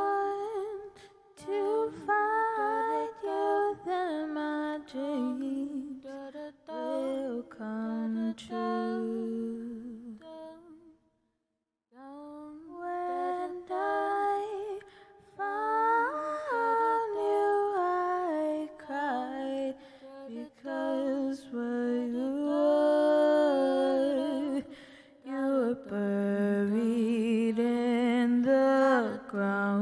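A woman's voice singing a slow melody alone, with long held notes and vibrato. It breaks off for about a second near the middle.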